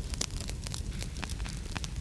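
Wood fire burning in a fireplace: a steady low rumble of the flames with many irregular sharp crackles and pops.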